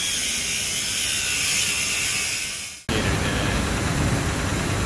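Corded DeWalt angle grinder grinding through a worn blower-shaft bearing to cut it off, a harsh metal-grinding hiss with a wavering whine. It stops abruptly about three seconds in, and a steady lower rumble of running machinery follows.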